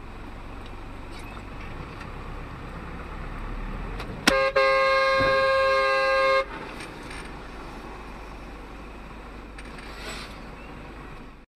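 Car horn sounding about four seconds in, a short toot then a steady blast of about two seconds, over the steady rumble of a car driving.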